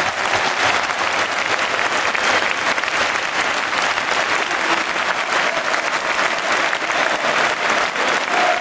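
Large stadium crowd applauding steadily, the dense clapping of many hands.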